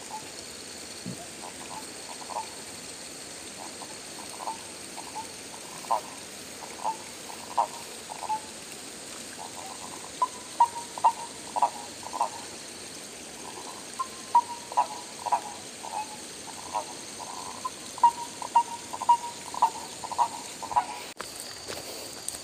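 Frogs croaking in short repeated calls, sparse at first and then in quick runs from about ten seconds in, over a faint steady high-pitched hum.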